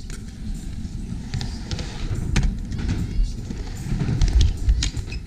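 Skateboard wheels rolling down a skatepark ramp, a low uneven rumble with several sharp clacks along the way.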